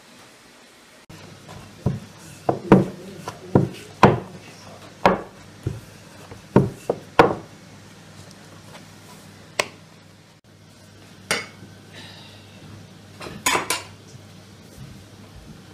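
Sharp knocks and clinks of kitchen items handled on a wooden board and a china plate: a quick irregular run over a few seconds, then a few more spaced out.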